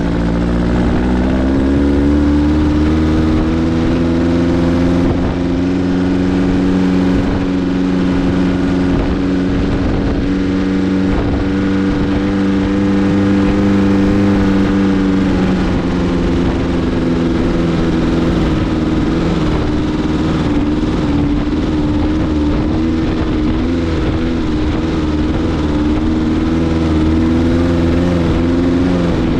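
Dune buggy engine running steadily under way, its pitch climbing in the first couple of seconds, holding, then dropping about halfway through and wavering after that, over a constant rush of wind and tyre noise.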